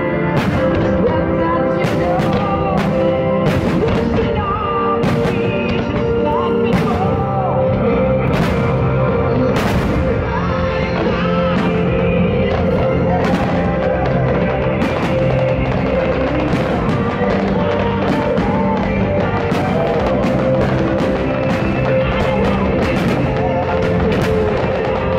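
Music with singing, overlaid by firework shells bursting with sharp bangs many times at irregular intervals, for a fireworks display set to music.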